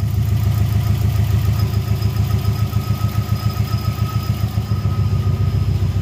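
Subaru turbocharged EJ20 flat-four engine idling steadily with an even, rapid pulse. A new air-fuel sensor has just cured its rich-running P0172 code, and the fuel correction sits at about 5%.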